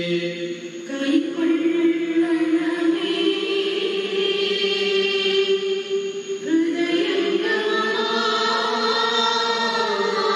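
Choir singing a slow chant in long held notes, moving to a new pitch every second or few.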